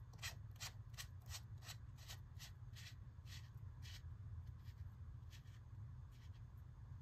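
Small plastic-and-metal clicks as the side battery cap of a Dagger Defense DDHS red dot sight is twisted by hand. The clicks come about three a second for the first few seconds, then a few scattered ones, over a faint low hum.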